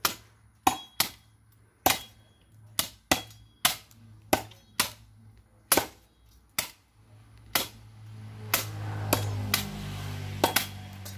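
Machete blows chopping into wooden stumps: sharp, irregular chops, about one to two a second, from two people hacking at the wood. A low drone swells in over the last few seconds.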